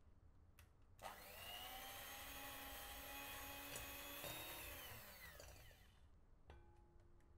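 Electric hand mixer beating butter in a glass bowl: the motor starts about a second in, runs steadily for a few seconds, then winds down with its pitch falling. A few faint clicks follow.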